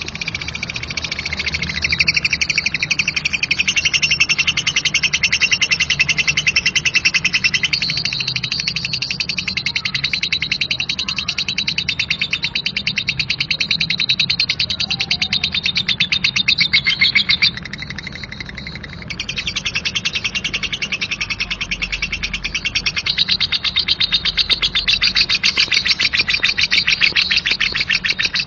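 Lovebird's 'ngekek' song: a long, rapid, harsh chattering trill. It breaks off briefly a little past the middle, then starts up again.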